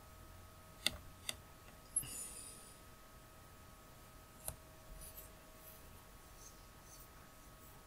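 Faint computer mouse clicks: two close together about a second in and another past the middle, with a short rustle around two seconds in and a few lighter ticks later, over a faint steady electrical whine.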